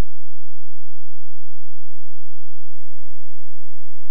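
Faint hiss and a low steady hum from a videotape transfer before the programme starts, with a few soft ticks; the hum gets stronger about halfway through.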